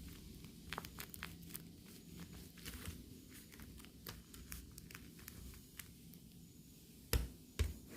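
Hands handling craft materials: scattered light clicks and rustles, then two thumps about half a second apart near the end.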